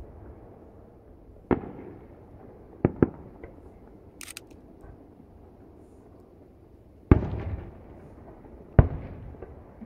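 Aerial firework shells bursting in the sky about a kilometre away: five sharp booms, a quick pair about three seconds in, and the loudest about seven seconds in followed by a rolling rumble.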